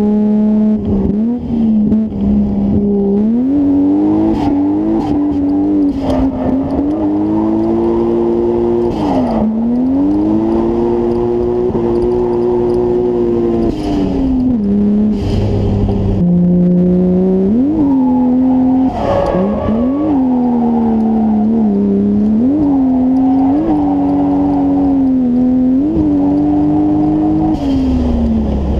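Nissan S13's engine under hard load, heard from inside the cabin while drifting. The revs climb and fall again and again, with several quick drops and sharp flares of revs in the second half.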